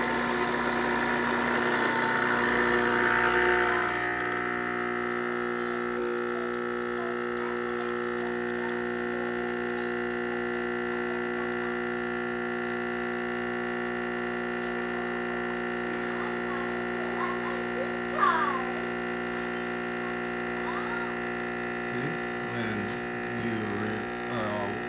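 Faema Family espresso machine's vibration pump humming steadily as it pulls an espresso shot. The sound is louder and hissier for the first four seconds or so, then settles into an even hum.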